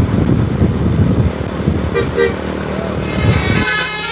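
Heavy vehicle engine rumbling close by, with a brief toot about two seconds in; near the end a bus's multi-tone musical air horn (telolet basuri) starts sounding.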